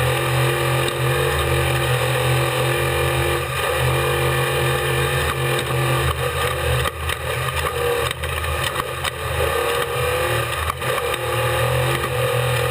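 Off-road race vehicle engine running hard at a steady pitch, heard onboard. In the middle the engine dips briefly a few times, with knocks and clatter from rough ground.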